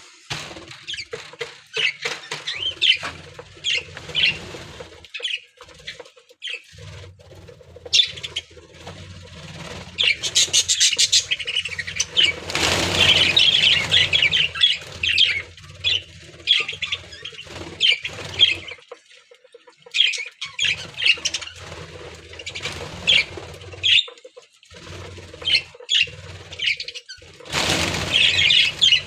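A flock of budgerigars chirping and chattering in a cage, with many short, quick calls. Twice, around the middle and near the end, there is a louder burst of wing flapping mixed with the calls.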